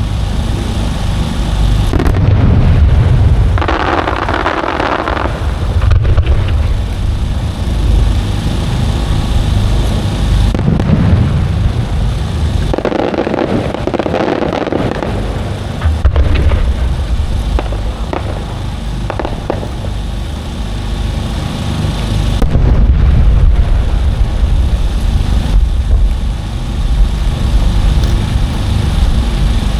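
Aerial fireworks display: shells bursting in repeated deep booms, with two longer hissing stretches about four and thirteen seconds in.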